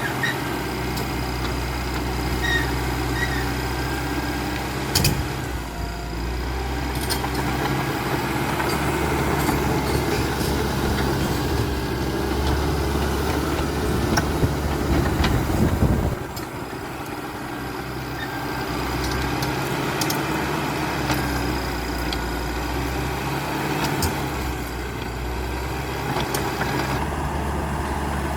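CAT D5K XL crawler bulldozer working, its diesel engine running steadily under scattered sharp knocks and clanks. The engine sound gets louder and busier, then drops off suddenly a little past halfway.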